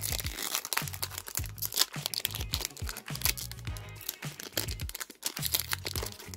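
Foil wrapper of a hockey card pack crinkling and tearing as it is opened by hand, many quick crackles, over steady background music.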